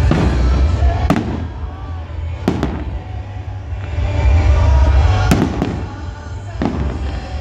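Aerial fireworks exploding: a string of sharp bangs, roughly one every second or two, over a continuous low rumble of the display.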